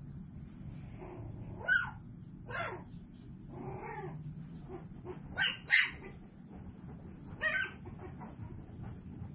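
Tiny toy poodle puppies whining and yelping in short high cries, about six in all, several falling in pitch, the loudest two close together a little past the middle.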